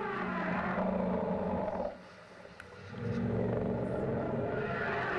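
Elephant anti-predator calls, the kind made when elephants are afraid of lions, played back through a boombox: two long calls of about two seconds each with a short pause between, each with a deep rumbling base under a higher, wavering call.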